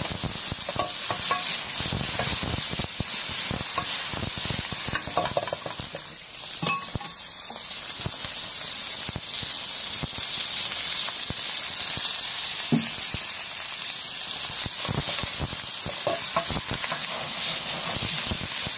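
Chunks of food sizzling steadily as they fry in a non-stick pan, with frequent short knocks and scrapes of a spatula stirring them.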